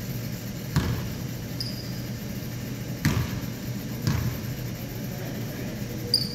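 Basketball bouncing on a hardwood gym floor: three separate bounces, echoing in the large hall, over a steady low hum. A brief high squeak comes near the end.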